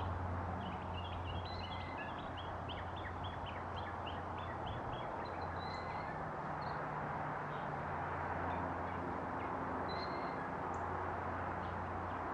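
Distant, steady rumble of a large four-engine military jet transport flying overhead. A small bird chirps in a quick run of notes for the first few seconds, with a few single chirps later.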